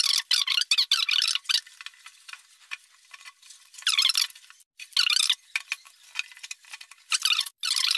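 Wire being wound by hand onto a welding-machine transformer's plastic bobbin: scraping and rustling as the wire rubs over the coil and the bobbin's edges, in short spells with pauses between.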